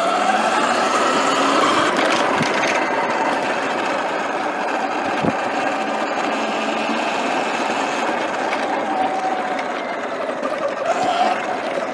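Sur-Ron Light Bee X electric dirt bike under way: a steady electric motor and drivetrain whine whose pitch shifts a little with the throttle, over a continuous rush of wind and tyre noise.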